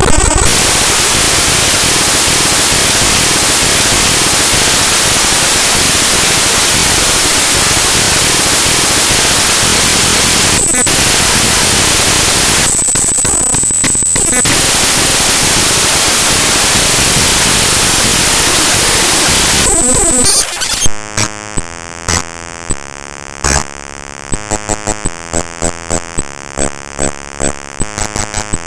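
Raw bytes of the Microsoft WordPad program file played back as audio: loud, harsh static for about twenty seconds. Near the end it changes to buzzy tones that step from pitch to pitch, broken by quick clicks.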